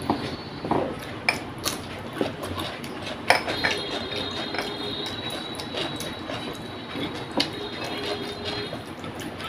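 Eating by hand: fingers mixing rice and fish against a plate, with scattered small clicks and chewing sounds. A faint steady high tone hums in the background from about three and a half seconds in.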